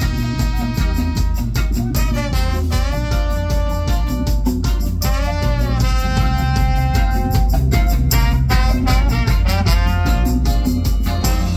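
Live band playing: trombone and trumpet carry a horn line over drum kit, bass, electric guitar, keyboard and tambourine, the horn notes swooping up and down in pitch a few times.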